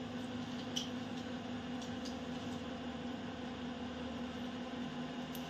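Steady background hum with an even hiss beneath it, and a few faint soft ticks, such as one about a second in.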